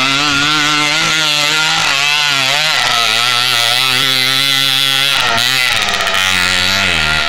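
Gilera 125 motorcycle engine revving as the dirt bike is ridden over grass and up a slope, its pitch rising and falling again and again with the throttle.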